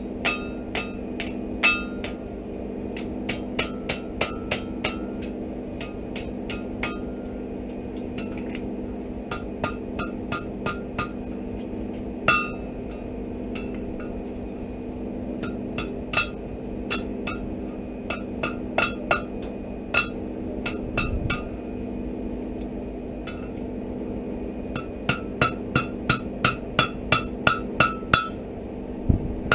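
Blacksmith's hammer striking a hot iron bar on an anvil in bursts of quick blows, about three a second, with the anvil ringing after each strike. The bursts pause now and then, and the densest run of blows comes near the end. A steady low hum runs underneath.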